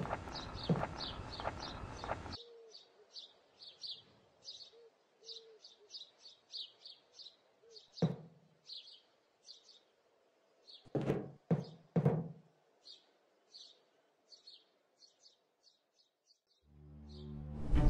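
Sparse small-bird chirps and tweets with a few dull thumps around the middle. At the start, a dense noisy passage with regular knocks cuts off suddenly about two seconds in. Music fades in near the end.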